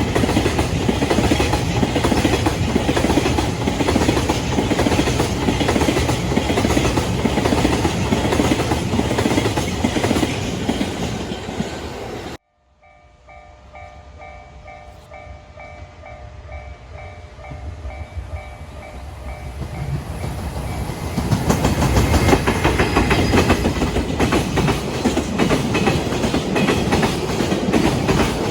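Freight train passing over rail joints with a rapid clickety-clack, cutting off suddenly partway through. Then a level-crossing warning bell dings in a steady repeating pattern while the next train's noise rises, and the train passes loud with clickety-clack again for the last third.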